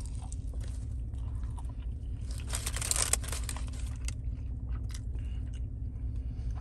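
A person biting into and chewing a chicken quesadilla close to the microphone, soft crunches and small mouth clicks, with a denser crunchy stretch about two and a half seconds in. A steady low hum runs underneath.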